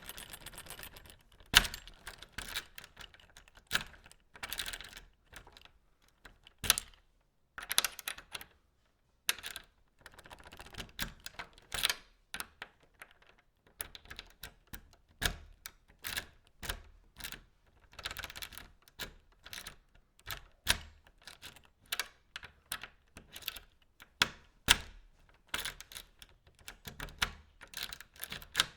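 Metal key sliding into a lock and turning, a string of sharp clicks and short scraping rattles repeated again and again with brief pauses.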